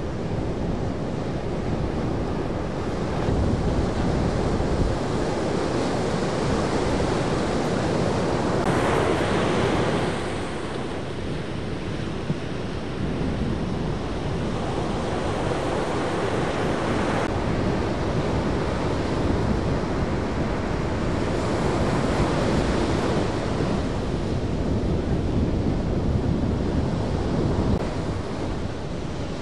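Ocean surf breaking and washing up the beach, with wind buffeting the microphone. The wash swells louder twice, about a third of the way in and again about three quarters of the way through.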